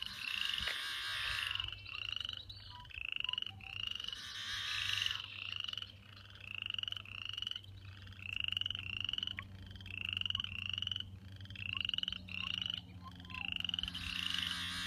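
A chorus of frogs calling in short rising creaky notes, about two a second, while a yellow-headed blackbird gives its harsh, buzzy, R2-D2-like song three times, the loudest sounds, near the start, about four seconds in, and near the end.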